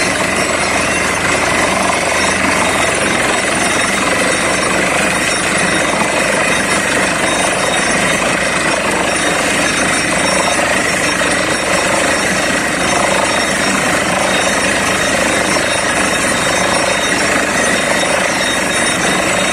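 Borewell drilling rig running, its air-driven down-the-hole hammer and compressor making a loud, steady, unbroken mechanical noise.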